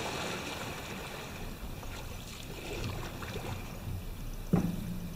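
Canoe paddles splashing and dripping in calm water as a tandem canoe holds a controlled stop, with a sudden knock about four and a half seconds in.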